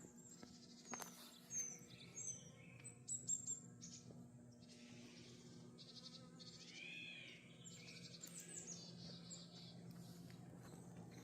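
Wild birds chirping and calling: scattered short, high calls in the first few seconds and a quick run of arching calls about seven seconds in, faint over a steady low hum.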